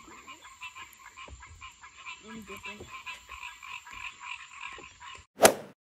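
A chorus of frogs calling in rapid, evenly repeated croaks over a steady high whine. Near the end the chorus stops and a single brief, loud burst of noise is heard.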